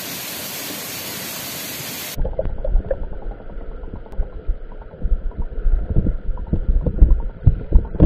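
A waterfall pouring into a pool, a steady hiss; about two seconds in it cuts off suddenly to the muffled sound heard underwater, a low, uneven rumble with gurgling and small knocks from a swimmer moving near the bottom.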